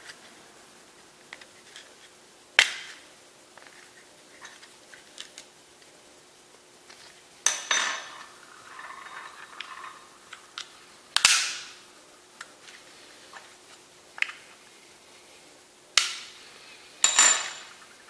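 Parts of a Glock 19 Gen5 pistol being handled during a field strip: sharp metal-and-polymer clacks and clicks, about five loud ones spread out, with fainter ticks between.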